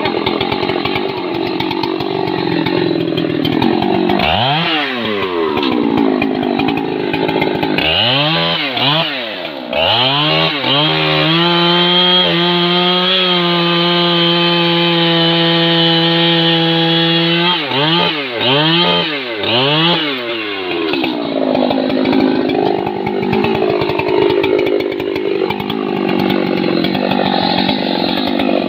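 Large two-stroke chainsaw cutting through a thick tree trunk. It runs rough and wavering under load at the start and end. In the middle the throttle is blipped several times, its pitch rising and falling, around a steady high-pitched full-throttle run of about six seconds.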